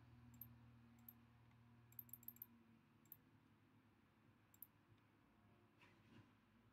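Faint computer mouse clicks, some single and some in quick runs, over a low hum that fades out partway through.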